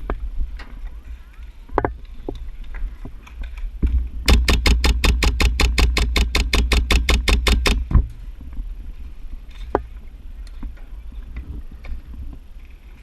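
MP7 gas-blowback airsoft gun firing on full auto: a rapid, even stream of shots lasting about three and a half seconds, starting about four seconds in. A low rumble of wind and handling noise runs under it, with a few scattered clicks and knocks.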